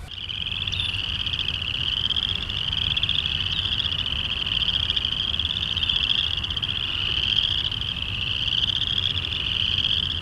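A dense chorus of frogs calling: a continuous high trilling that swells and fades in overlapping waves, over a low steady rumble.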